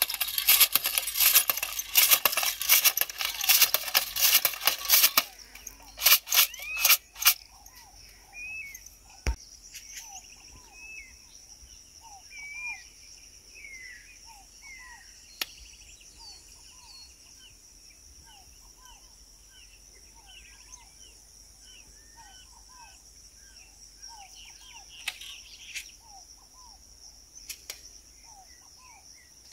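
Hand jab planter (matraca) rattling and clinking in rapid metal clicks as it is worked, for about the first five seconds. Then it stops, leaving birds chirping in short calls over a steady high insect drone, with a few sharp clicks.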